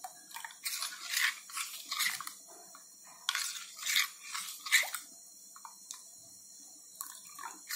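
A steel spoon stirs runny rice batter that is being thinned with water, scraping and clinking against the bowl in irregular bouts.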